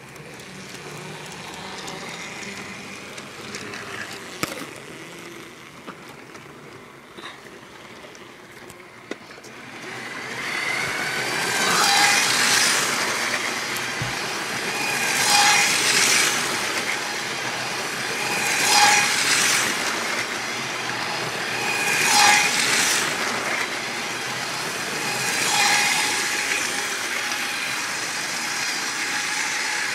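Lego toy train running round its track: a motor whine and wheel clatter that swell as it comes by, about every three and a half seconds, from about ten seconds in. Before that it is quieter, with a few faint clicks.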